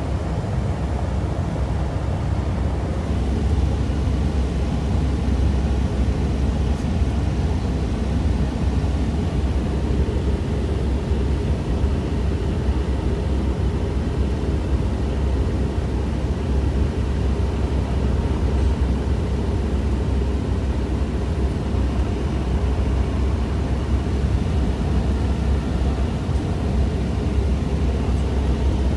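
Cessna 172 Skyhawk's piston engine and propeller running steadily in flight, heard inside the cabin as a constant low drone.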